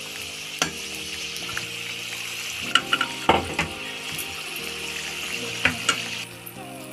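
Hot oil sizzling steadily as a chicken samosa deep-fries in a kadhai on a low flame. A few sharp clinks and scrapes come from a metal slotted spoon knocking against the pan as the samosa is turned and lifted out.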